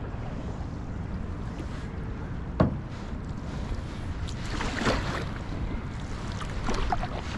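Canoe being paddled: paddle strokes swishing and splashing in the water, with one sharp knock about two and a half seconds in. Steady wind rumble on the microphone underneath.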